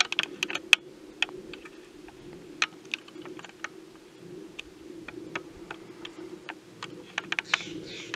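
Irregular sharp clicks and ticks, several a second at times, over a steady low hum. Harsh, rasping bird calls start near the end.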